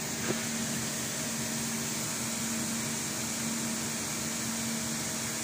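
Steady hum of running machinery, with a constant low tone under an even rush of noise. One soft click shortly after the start.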